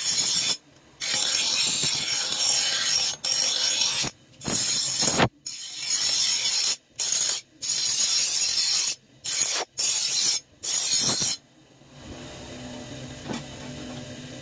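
Steel sickle blade ground against a bench grinder's abrasive wheel: a harsh, loud grinding hiss in about eight passes, each broken by a brief silence as the blade is lifted off. Near the end the blade comes away and the grinder keeps running on its own with a quieter steady hum.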